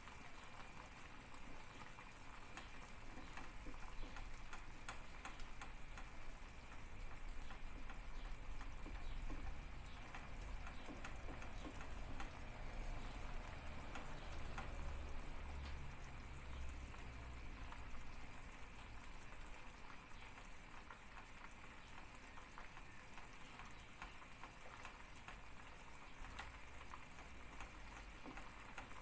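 Wire whisk stirring thick milk pudding in a metal pot, making light, irregular ticks as the wires tap and scrape the pot, over faint bubbling as the pudding starts to bubble.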